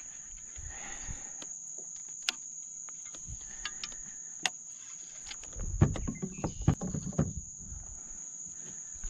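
Steady high-pitched drone of insects in the marsh, with scattered clicks, and a cluster of knocks and thumps on the plastic kayak about six to seven seconds in.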